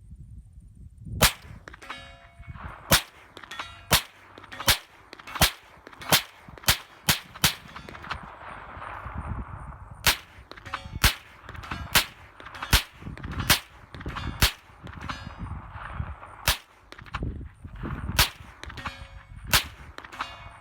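A 9mm firearm firing a long string of rapid semi-automatic shots, about twenty in all, roughly one a second with a short pause midway. After many of the shots a steel plate target rings from the bullet strike.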